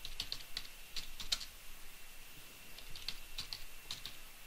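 Computer keyboard typing: quick runs of light keystroke clicks, with a short pause about halfway through.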